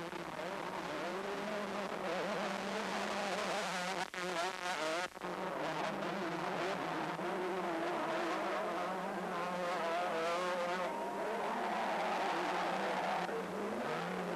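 Several two-stroke motocross bike engines revving hard, their pitch wavering up and down with the throttle as the bikes race past, with a sharp rising rev near the end.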